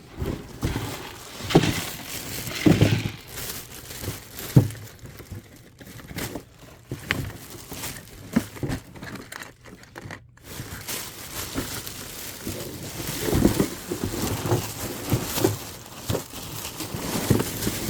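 Items being rummaged through and handled: packaging crinkling and rustling, with irregular knocks and bumps as things are picked up and set down.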